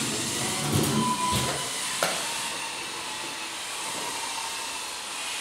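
FTC competition robots' electric drive motors and gearboxes whirring steadily as the robots drive around the field, with a few low knocks early and a sharp click about two seconds in.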